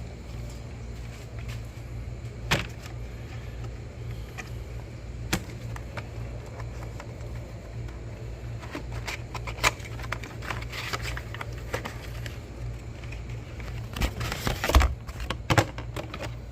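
1998 Chevy Venture's 3.4-litre V6 engine idling steadily, with scattered clinks and knocks of hand work on the engine; the loudest cluster of knocks comes near the end.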